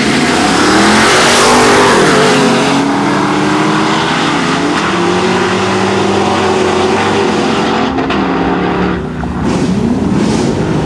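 A Camaro and a pickup truck launch side by side at full throttle on a drag strip. Their engines rev up hard and climb through the gears as they pull away down the track. The sound is loudest in the first couple of seconds.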